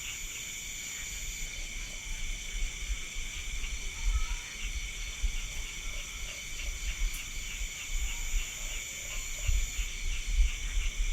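Night chorus of crickets and other insects: several steady high trills at once, one of them pulsing in an even rhythm, over a low uneven rumble.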